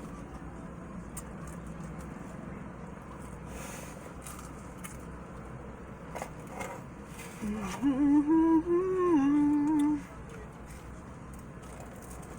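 A woman humming with her mouth closed: one wavering, tuneful 'mmm' lasting about two and a half seconds, starting a little past halfway, over a steady low background hum with a few faint clicks before it.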